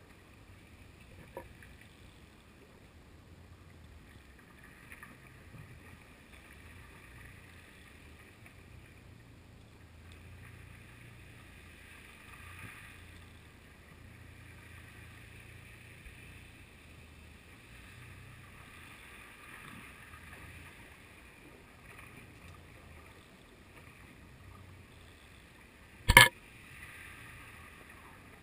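Muffled underwater sound picked up by a GoPro in its waterproof housing, tied to a lead cod jigger: a steady low hum with a few faint ticks, and one sharp, loud knock near the end.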